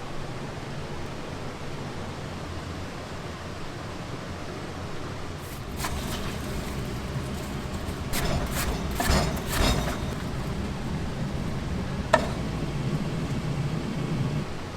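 Steady background hiss and low hum, with a few clattering noises in the middle and one sharp click about twelve seconds in.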